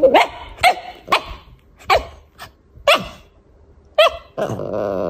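Small Cavalier King Charles Spaniel giving about six short, sharp yapping barks. Near the end comes a steady, wavering sound that lasts about a second.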